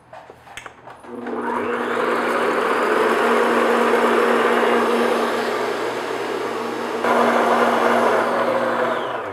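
Electric stand mixer with a whisk attachment whipping eggs and sugar at medium-high speed: a steady motor whir with a constant hum. It spins up about a second in and winds down near the end.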